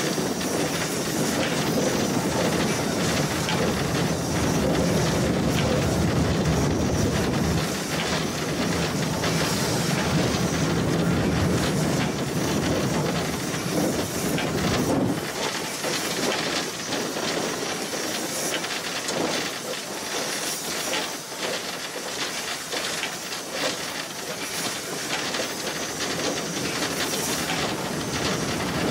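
Cab of steam locomotive 434.2186 moving slowly, with steady steam hiss and the rumble and clatter of its wheels on the track. About halfway through the deep rumble drops away, leaving the hiss and a run of sharp clicks and knocks.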